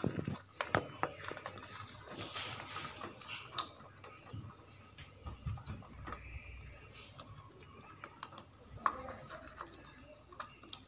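Rabbits and a cat eating dry food together from one bowl: irregular crunching and clicking of chewing, and of food knocking against the bowl. A steady high-pitched whine sits behind it and drops out briefly twice.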